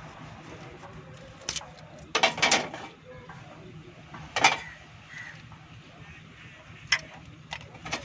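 Steel hand tools clinking on a valve rocker arm: a ring spanner and screwdriver work the tappet adjusting screw and locknut of a 1974 Toyota Corolla engine while the inlet valve clearance, found too tight, is reset with a feeler gauge. Sharp clinks come singly and in a short cluster about two seconds in, over a steady low hum.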